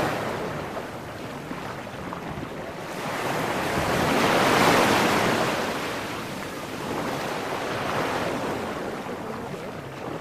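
Small waves breaking and washing up over the sand at the water's edge, swelling and drawing back, with the biggest surge about halfway through and a smaller one near the end.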